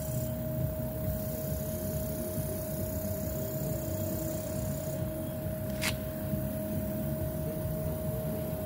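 Small airbrush air compressor running, a steady low hum with a constant whine over it. One sharp click about six seconds in.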